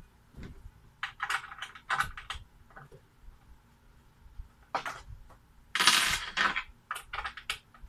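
Small metal parts clinking and rattling in several short clusters of clicks, the longest and loudest about six seconds in.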